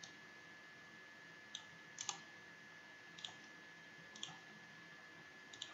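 Faint computer mouse clicks, about five scattered over a few seconds, some in quick pairs. A faint steady high-pitched whine runs under them.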